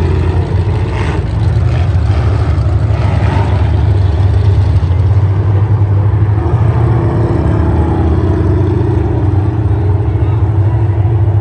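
Demolition derby cars' engines running loud and low, with a few knocks in the first few seconds and a slowly falling engine note about two-thirds of the way through.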